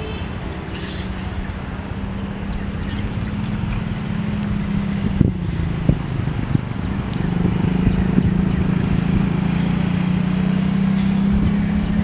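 Diesel-electric locomotive engine drone from an approaching train, a steady low hum that slowly grows louder, with a few short clicks about five to six seconds in.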